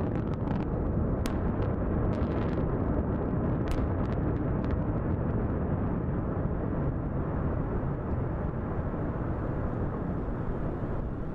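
Controlled implosion of the Georgia Dome stadium: a scattered series of sharp cracks from the demolition charges over the first few seconds, over a continuous deep rumble as the structure collapses.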